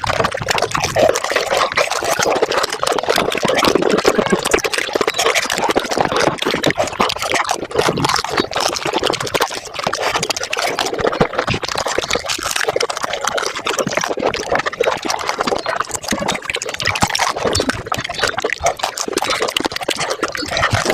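Panipuri being eaten at five times normal speed: crisp puris crunching and the spiced water slurping, run together into a dense, continuous stream of rapid crackling, wet mouth sounds.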